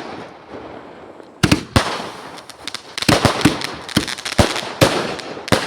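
Firecrackers going off: two sharp bangs about a second and a half in, then a quick run of irregular bangs from about three seconds on, with crackling between them.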